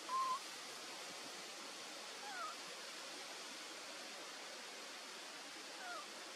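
A short, clear animal call right at the start, the loudest sound here. Two fainter, quick downward-sliding calls follow, about two and six seconds in. Under them runs a steady forest hiss.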